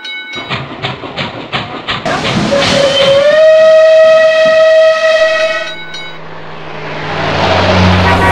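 Train sound effects: a quick regular clatter, then a train whistle that slides up in pitch and holds one long steady blast for about three seconds before cutting off, followed by a swelling rush of noise as the train passes.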